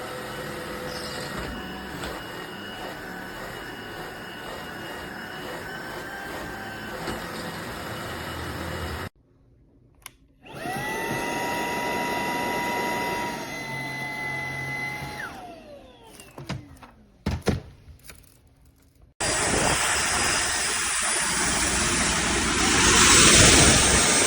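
Cordless stick vacuum running across several cuts. One stretch is a steady motor whine that falls in pitch and dies away as the vacuum is switched off. A few clicks follow, then the vacuum runs loudly again.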